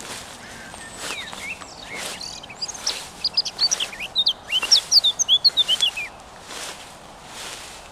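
Songbirds chirping in a quick run of short, high, sweeping notes from about two and a half to six seconds in, over a soft outdoor background hiss.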